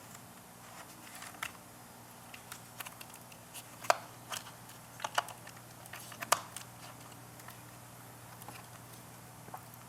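Scattered sharp plastic clicks and taps as a laptop speaker cable is pressed and routed into its channels in an open chassis, the loudest clicks in the middle, over a faint steady hum.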